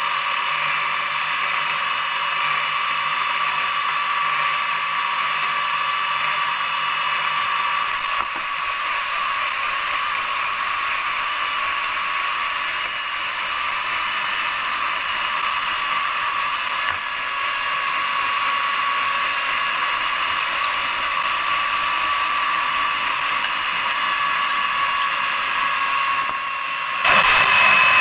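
Electric motor of a Philips hand mixer on its stand running steadily with a high whine, its beaters turning through cake batter. About a second before the end it suddenly gets louder.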